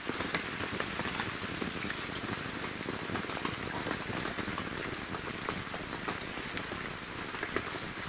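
Steady pattering of falling water drops, rain-like, with scattered sharper drips.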